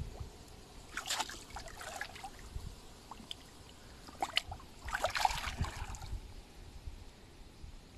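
Water splashing and trickling in three short bursts, about a second in, around four seconds in and again about five seconds in, over a low rumble.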